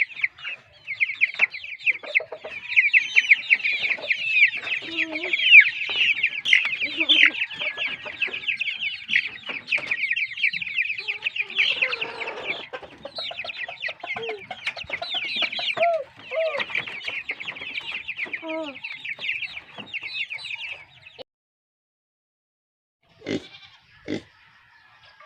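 A flock of chickens clucking, with a dense mass of rapid, overlapping high chirps over scattered lower calls. The calling cuts off suddenly about 21 seconds in, followed by a few short knocks.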